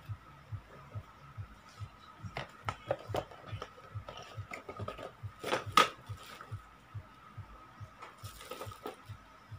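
Hands handling plastic wrapping and a cardboard box: crinkling rustles and clicks from about two seconds in, loudest a little before six seconds, with another rustle near the end. Underneath, a faint low thud repeats about twice a second over a faint steady hum.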